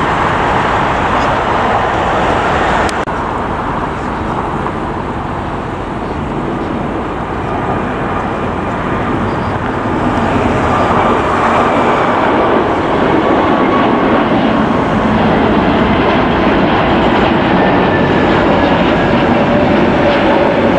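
Jet engine noise at an airport. After a cut about three seconds in, the steady roar of a Spirit Airbus A321neo's Pratt & Whitney geared turbofans at takeoff thrust as it lifts off and climbs out, growing louder from about ten seconds in with a whining tone over the roar.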